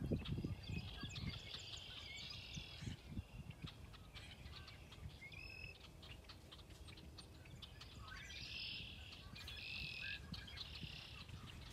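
Small birds chirping and calling repeatedly, with the dull thuds of a horse's hooves cantering on turf, strongest in the first second, fading away, and growing again near the end.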